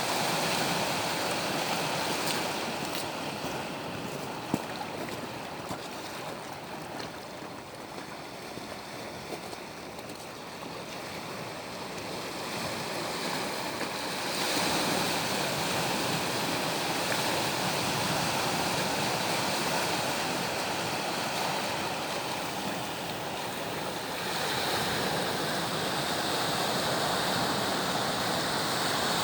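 Sea waves breaking and washing on the shore in a steady rush, surging louder about halfway through and again near the end.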